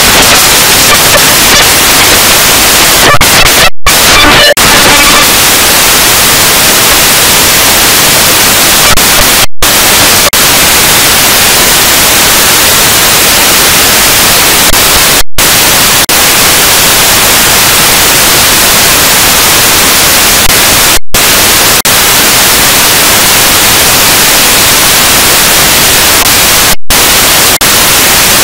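Loud, continuous harsh static like white noise: logo audio run through a heavy digital distortion effect. It is cut by a brief silent gap about every six seconds.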